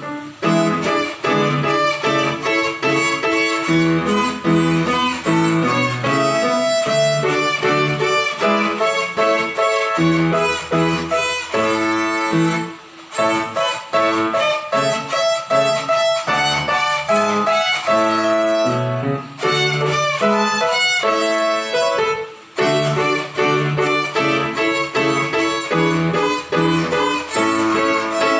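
Violin playing a simple melody of separate bowed notes over a lower accompaniment, with a few short breaks between phrases.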